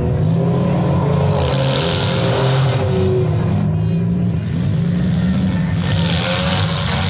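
Demolition derby car engines revving hard, their pitch rising and falling as the cars accelerate and back off.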